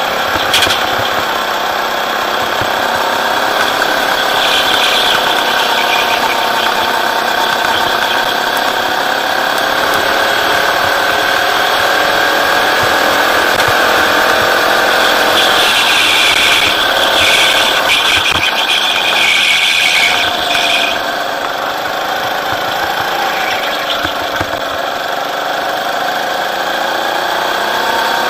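Rental go-kart's engine running under load, recorded onboard, its pitch slowly rising and falling as the revs build on the straights and drop into the corners. A high hissing squeal rises over it for several seconds in the middle.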